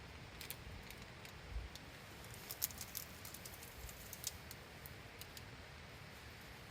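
Scattered sharp crackles and ticks over a faint steady hiss from a campfire cooking setup, an iron plate set on the embers. The crackles are densest in the first few seconds and then thin out.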